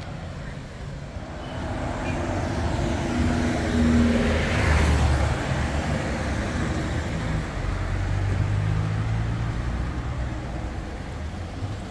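Street traffic: car engines running at low revs, with one car passing close about four to five seconds in, its tyre noise swelling and then fading.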